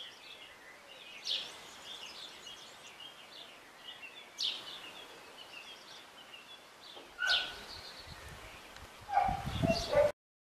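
Small birds chirping, with three louder falling calls spaced a few seconds apart. Near the end a louder, deeper noise comes in, then the sound cuts off.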